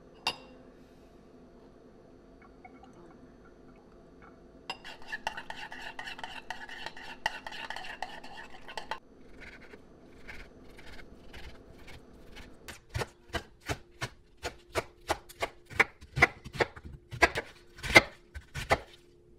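A metal spoon stirring and scraping seasoning paste in a ceramic bowl for about four seconds. Then a chef's knife cuts pork belly and chops cabbage on a bamboo cutting board, with sharp knocks about two a second that get louder toward the end.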